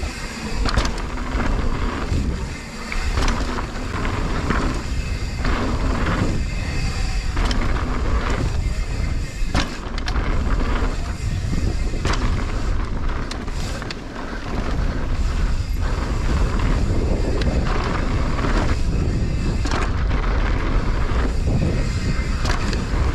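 Mountain bike riding fast over rough trail: heavy wind rumble on the microphone with many knocks and thumps from the bike hitting bumps and landings.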